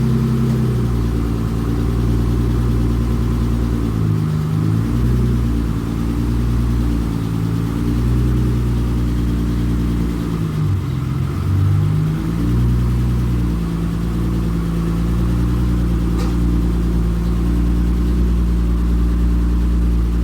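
Car engine running steadily, its pitch rising and falling several times as it is revved, with a single sharp click about sixteen seconds in.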